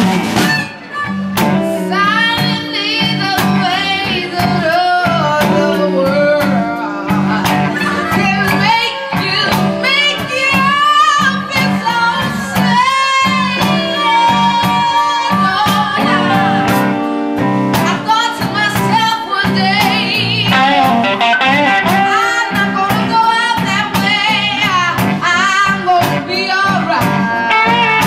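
Live band playing a blues-tinged song: a singer's voice over guitars and a drum kit keeping a steady beat.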